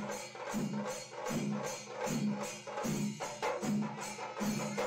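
Rhythmic percussion music: drum strokes a little over twice a second, each with a metallic, cymbal-like clash.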